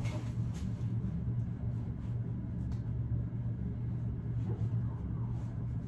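A steady low rumble and hum, with a few faint light clicks scattered through it.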